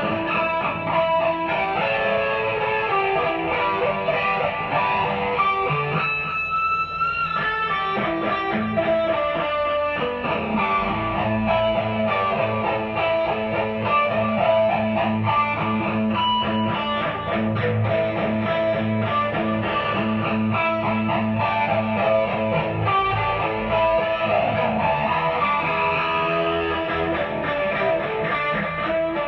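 Mexican-made Fender Stratocaster electric guitar played through a Marshall DSL40C valve amp: a continuous run of picked notes and strummed chords.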